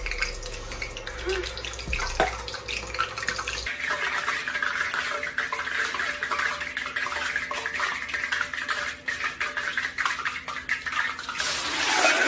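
Hot cooking oil sizzling and crackling in a pot, swelling to a loud rushing hiss near the end as the oil flares up.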